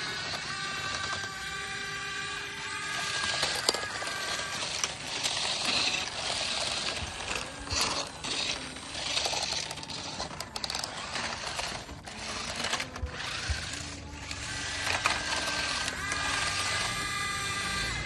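Clattering, clicking mechanical noise with the whir of small motors, typical of a toy radio-controlled excavator at work, uneven through the middle. Steady humming tones are heard at the start and again near the end.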